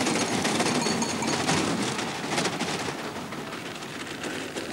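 Two-man bobsleigh running down an ice track at over 100 km/h: a steady rushing hiss of the steel runners on the ice with a fast, irregular rattling clatter.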